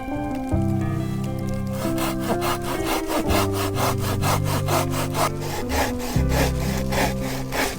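Hand saw cutting through wood in quick back-and-forth strokes, about four a second, starting about two seconds in and stopping near the end, with background music playing throughout.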